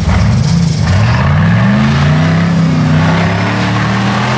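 Rock-race buggy engine revving hard under load as it climbs a rocky slope, its pitch rising over about a second and a half and then holding high.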